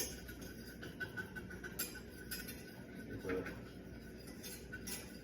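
A utensil clinking and scraping in a pan, with scattered sharp clicks, as rice is stirred and toasted in oil and butter for a pilaf.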